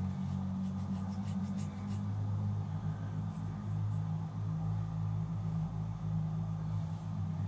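Steady, low droning background music, with a few faint ticks about one to two seconds in.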